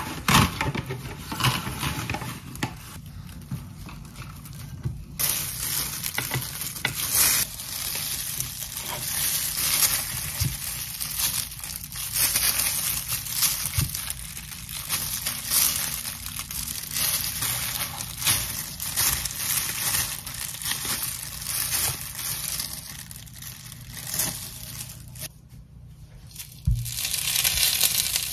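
Plastic cling wrap crinkling and tearing as it is pulled out and spread flat, then disposable plastic gloves rustling and crinkling against the wrap while rice is pressed into a metal ring mold. Near the end, a thump and a rice patty starting to sizzle in oil in a frying pan.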